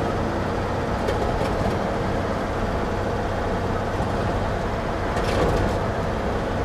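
1949 GMC half-ton pickup's original 228 cubic-inch inline-six running steadily as the truck drives along, mixed with road noise and a few light rattles.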